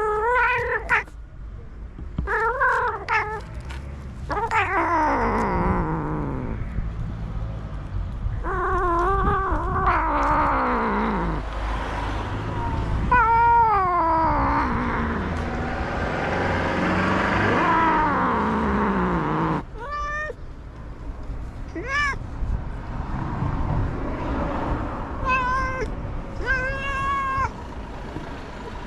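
Cat meowing over and over: long, drawn-out, wavering yowls that slide down in pitch, followed by shorter, higher meows in the last third.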